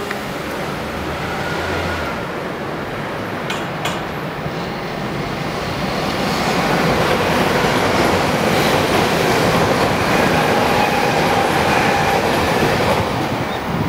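Shinkansen Doctor Yellow, a 923-series track-inspection train, running past on the viaduct after leaving the station. Its wheel and motor noise builds to a loud rush about six seconds in, with a faint whine over it, and drops off near the end.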